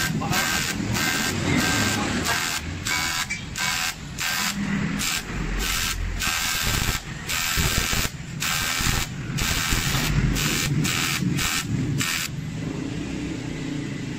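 Aluminium welding arc buzzing and hissing on a cracked engine-case stand mount, cutting out briefly about twice a second as the welder works in short dabs, then stopping about twelve seconds in.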